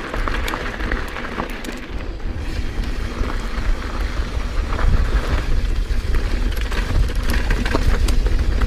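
Giant Trance mountain bike rolling along a gravel path: the tyres crunch and crackle over loose stones, over a steady low rumble of wind buffeting the handlebar camera's microphone.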